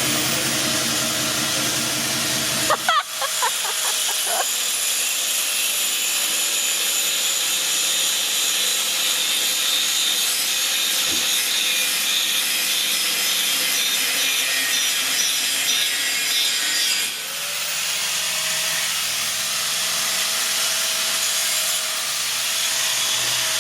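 A metal-cutting tool runs steadily with a loud, even, harsh hiss, most likely cutting through the truck's exhaust. It starts abruptly and changes briefly about 17 seconds in.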